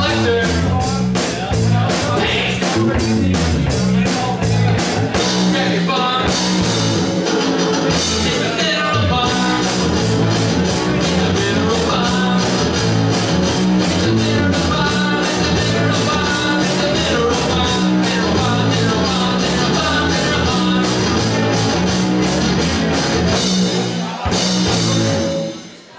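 Live rock band of electric guitars and a drum kit playing a fast song with a steady driving beat, which comes to its end with a last crash just before the close.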